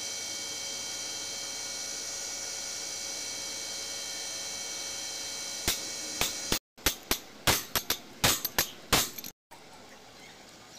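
A steady electrical hum with a few constant high whining tones, then, after an abrupt cut, a quick run of about a dozen sharp knocks and clinks over some three seconds.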